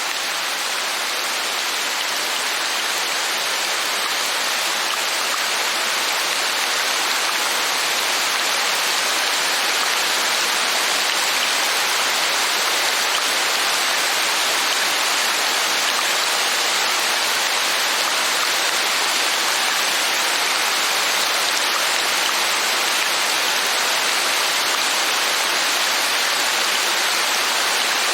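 Steady heavy rain: a dense, even hiss that grows slightly louder over the first ten seconds or so.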